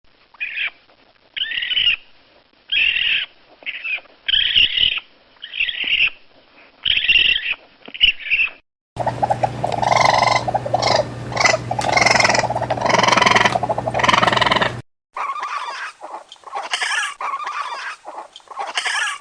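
Raccoon calls from three spliced recordings: first a run of short, high, repeated chitters, then a denser stretch of chattering over a steady low hum, then more calls after a second cut.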